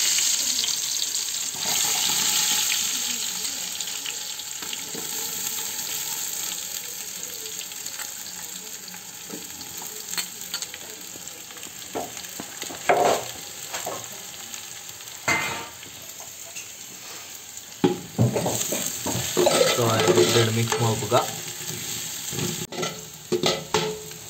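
Onions and garlic frying in hot oil in a pan, sizzling loudly at first and then gradually settling. A spoon stirs and scrapes against the pan now and then, more busily near the end.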